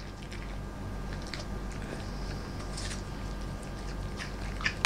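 A husky chewing a piece of pear: irregular soft crunching and clicks of its teeth, with a couple of sharper clicks near the end, over a steady low hum.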